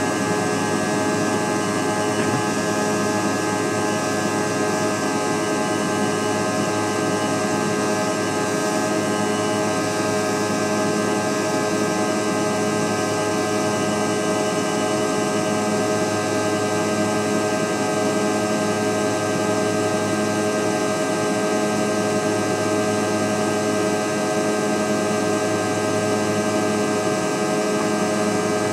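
Jet airliner cabin noise in flight during the climb: the engines and rushing air make a steady, loud drone with several steady whining tones that do not change.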